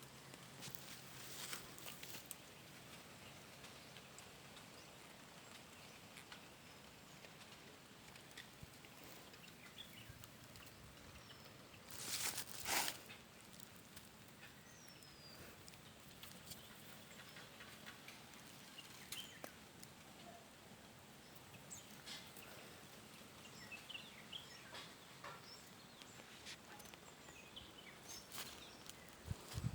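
Faint outdoor ambience with a few brief high bird chirps and scattered small clicks, and a short louder rustle about twelve seconds in.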